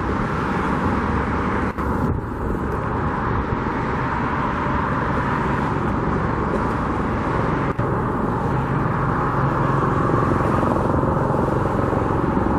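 Steady roar of road traffic mixed with wind on the microphone, with two brief dips in level.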